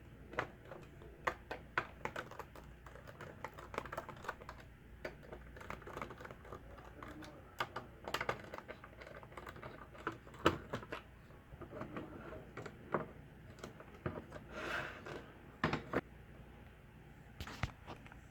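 Irregular light clicks and taps of a small screwdriver working the screws of a laptop's internals and of small plastic and metal parts being handled, with a few sharper knocks about ten, sixteen and seventeen seconds in.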